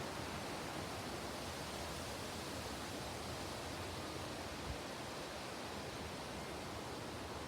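Steady wind on a breezy day: an even rushing hiss with a fluttering low rumble, and one brief low bump of wind on the microphone about two-thirds of the way in.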